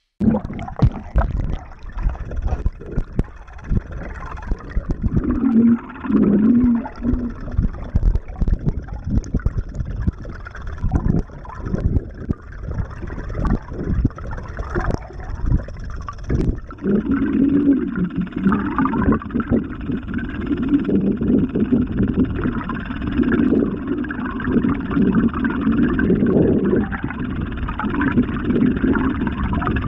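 Bladed jig (chatterbait) heard underwater while being retrieved: its metal blade clacking as it vibrates, making irregular knocks and clicks at first, then a denser, steadier buzzing rattle about halfway through.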